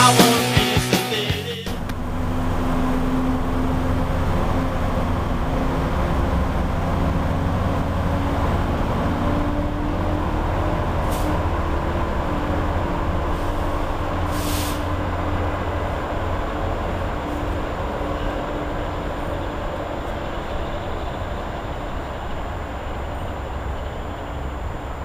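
Rock music that cuts off about a second and a half in, then the steady running rumble of a diesel locomotive at the station, with two short hisses of air near the middle. The rumble slowly fades toward the end.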